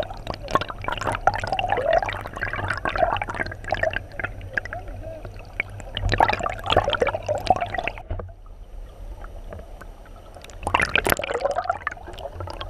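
Shallow river current gurgling and bubbling around a submerged camera, heard from underwater, with many sharp clicks and ticks. It goes quieter about two-thirds of the way through, then surges again briefly near the end.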